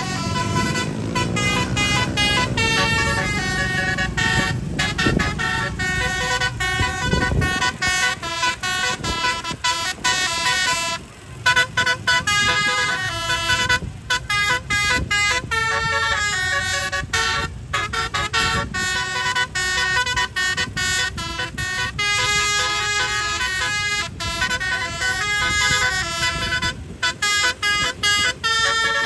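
Bus telolet horns (basuri-type multi-note air horns) playing a fast melody, the notes changing several times a second. A deeper tone swells up and down in pitch in the first few seconds underneath.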